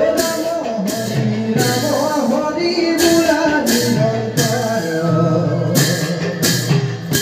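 Men singing a Bhaona devotional song through microphones, set to a tea-garden (bagania) folk tune, with instrumental accompaniment and sharp percussion strikes about every half second to second.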